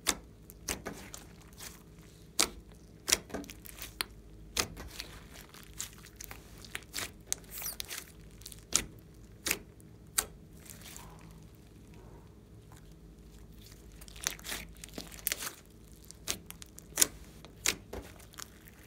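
Large mass of glossy slime mixed with clay being pressed, poked and stretched by hand, giving off frequent sharp, irregular clicks and pops as trapped air pockets burst. There is a quieter stretch near the middle.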